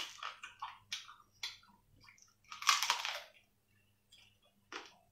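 A person eating cooked crab: the shell is pulled apart by hand and the meat chewed, giving a run of short crackles and clicks in the first second and a half and a longer crunching, sucking sound near the middle.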